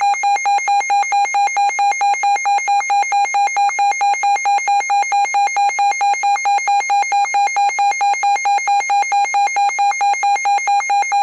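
Electronic emergency-alert attention tone: a single buzzy tone of about 800 Hz, beeping rapidly at about five pulses a second without a break. It signals that an emergency alert message is about to be read.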